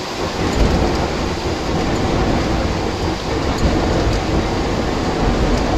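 Steady heavy rumble and rattle inside the cockpit of a Be-200 amphibious jet as its hull skims the water after touchdown, over the noise of its twin turbofans.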